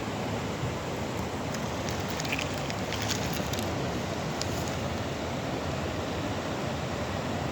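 Steady rushing outdoor noise with a few faint small clicks and taps between about one and a half and four and a half seconds in.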